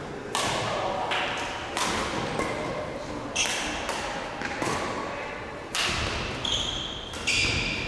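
Badminton rally: rackets striking the shuttlecock in sharp hits about once a second, each echoing in the large hall, with shoes squeaking on the court floor near the end.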